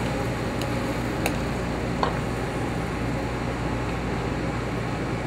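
Steady hum of a commercial kitchen's ventilation fan and lit gas burners, with a couple of light clinks of a metal ladle against a sauté pan about a second and two seconds in as sauce is spooned onto a plate.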